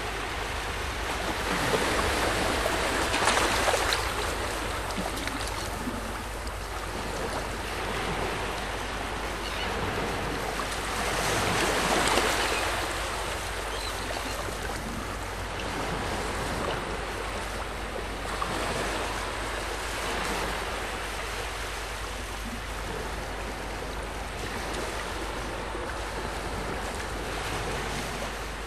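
Wind and sea noise on a small open fishing boat: wind rushing over the microphone and water washing around the hull. It swells louder a few seconds in and again near the middle.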